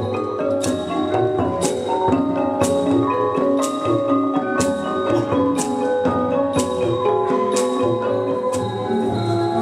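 Thai classical piphat ensemble music accompanying a Khon dance prelude: a melody on xylophone and gong-circle mallet instruments, with a sharp stroke marking the beat about once a second.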